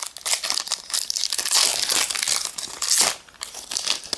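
Foil booster-pack wrapper crinkling and crackling as it is torn open by hand, dense for about three seconds, then quieter rustling with a sharp snap near the end as the cards come out.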